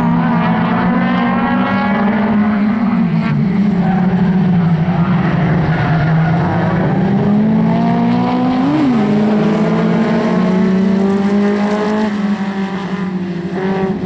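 Several jokkis race cars' engines running hard at high revs as a pack goes by, their pitches rising and falling through gear changes, with one sharp rev-and-drop about halfway through.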